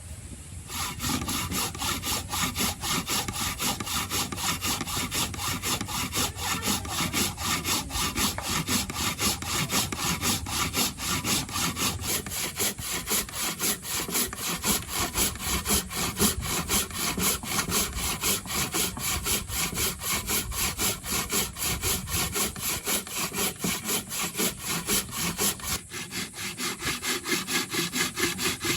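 A hand tool worked back and forth on wood in quick, even strokes, about four a second, starting just under a second in and pausing briefly near the end.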